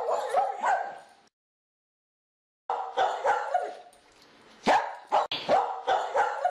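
A dog barking in a run of short calls. The barking cuts out about a second in, leaves a second and a half of dead silence, then goes on in several more barks.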